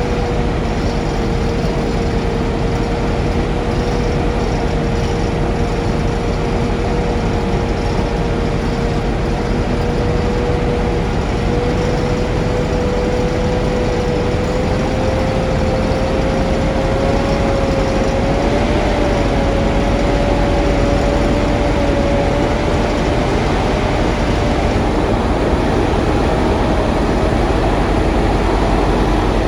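Vehicle engine running steadily under a wash of road and traffic noise, with one droning tone that holds and then slowly rises in pitch over the second half.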